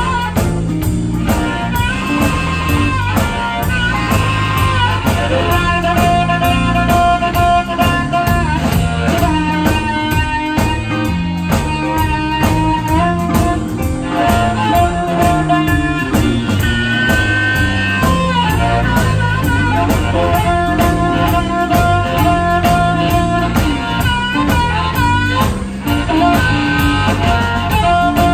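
Live electric blues band instrumental: an amplified harmonica plays held and bent notes over electric guitar, bass guitar and drums keeping a steady beat.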